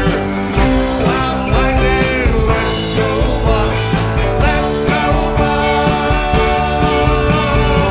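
Live rock band playing a song at full volume, with electric guitars, bass guitar, drum kit and keyboard.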